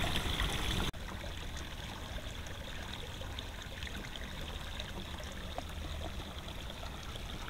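Water gushing from a pipe outlet and splashing into a pond in a steady stream. It cuts out for an instant about a second in, then carries on a little quieter.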